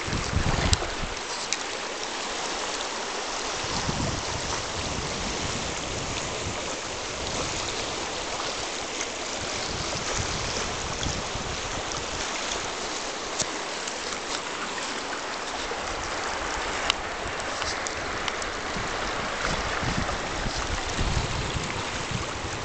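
Shallow, clear river rushing and babbling steadily over a stony bed through riffles.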